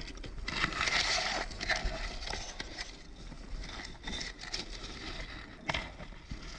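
Scraping and rustling, loudest in the first second and a half, with scattered small clicks and one sharp click about five and a half seconds in.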